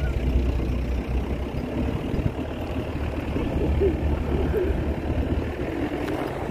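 Safari jeep's engine running as it drives over sand dunes, a steady low rumble with rushing noise over it.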